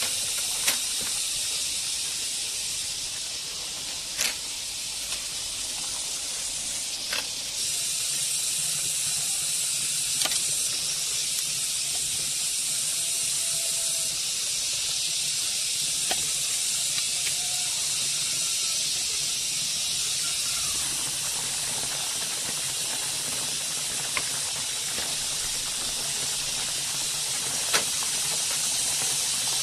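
A steady high-pitched hiss throughout, with a sharp click or tap every few seconds as bamboo slats are handled and tied onto a bamboo fence.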